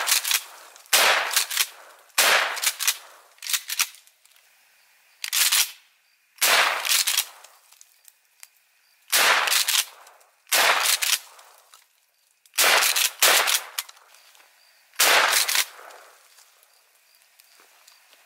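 12-gauge shotgun firing birdshot in a rapid string of about nine blasts, one to three seconds apart, then stopping for the last few seconds.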